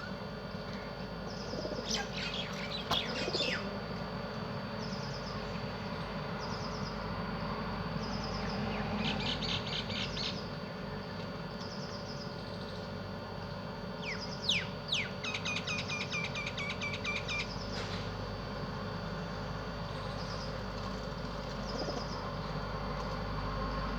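Small birds chirping: short high chirps repeated every second or so, a quick chattering run about nine seconds in, and a burst of falling notes running into a fast trill from about fourteen to seventeen seconds.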